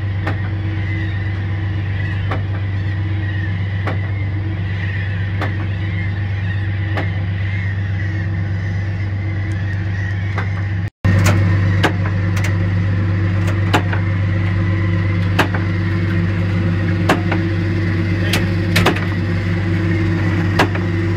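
Fishing launch's engine running steadily with a low drone, with scattered sharp knocks. The sound cuts out briefly about halfway and comes back a little louder.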